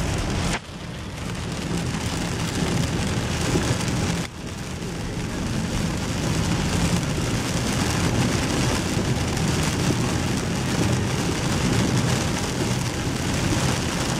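Heavy rain drumming steadily on a car's roof and windshield, heard inside the cabin over the low rumble of the moving car. The sound drops out abruptly twice, about half a second and four seconds in, and builds back up.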